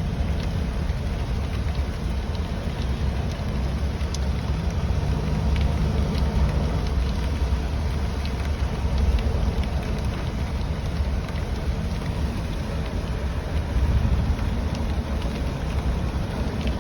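A car driving in rain: a steady low rumble of the car on the road under an even hiss of rain, with scattered light ticks of drops striking.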